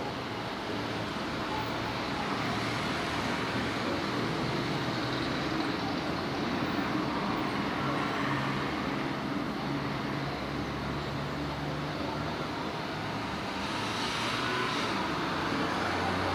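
Steady city street traffic: a wash of passing motor vehicles, with a low engine drone swelling in the middle and a brief rise in hiss about fourteen seconds in.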